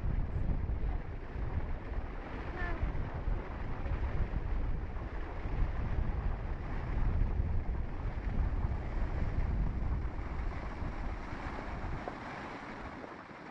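Floodwater rushing through a rocky gorge as a steady noise of churning rapids, with wind rumbling on the microphone. The sound eases a little near the end.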